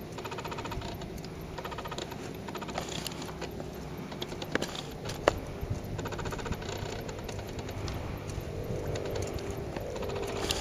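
A camera's zoom and focus motor whirring in short spurts several times, over a steady low rumble of wind and handling noise, with a few sharp clicks in the middle.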